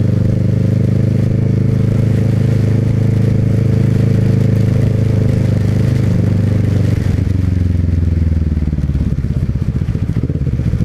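Motorcycle engine running steadily under way, then the revs fall away about two-thirds through and it drops to a slow, pulsing low-rpm beat near the end as the bike slows.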